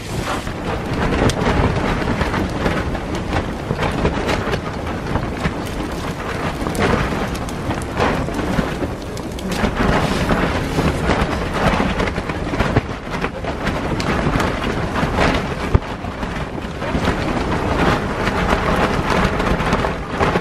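Strong wind gusting against a canvas tent, a loud rushing that swells and eases, with the fabric snapping and shaking many times over.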